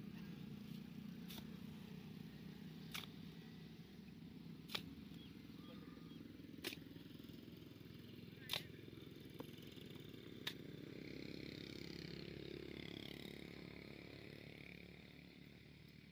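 Shovel digging into a sand pile and loading it into a donkey's jute saddlebag: a sharp clink about every two seconds, six times, over a low steady background rumble.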